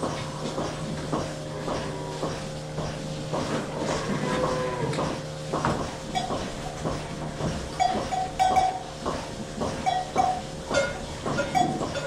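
Dairy cows in a tie-stall barn during milking, with mooing over a steady mechanical hum and scattered knocks and clanks of stalls and milking equipment.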